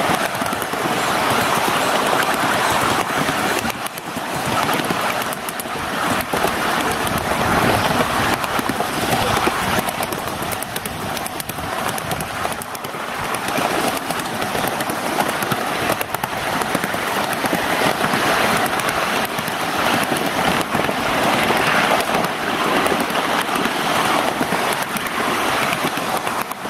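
Miniature ride-on railway train running along its track: a steady rattle and clatter of the cars' wheels and couplings, thick with small clicks.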